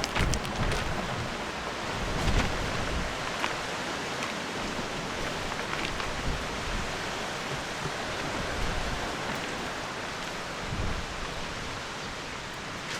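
Strong wind blowing in a steady rush, with gusts buffeting the microphone in low rumbles a few times, about half a second in, near two and a half seconds and near eleven seconds.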